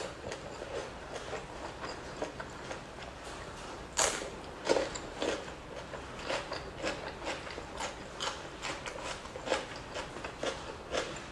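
Close-up mouth sounds of chewing chewy fish skin and rice: a run of irregular wet clicks and smacks, with a louder smack about four seconds in.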